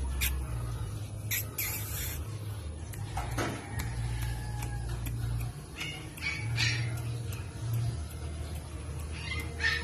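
A few short, high animal calls at irregular intervals over a steady low rumble.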